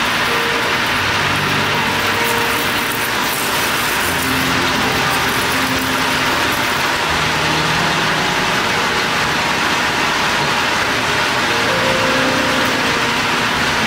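Steady running noise of a metal lathe turning a small piston, with low tones underneath that shift pitch every second or so.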